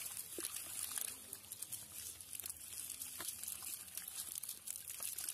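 Tilapia being picked by hand out of a wet nylon fishing net: a steady run of small, irregular crackles, rustles and light slaps from the net mesh and the fish on mud.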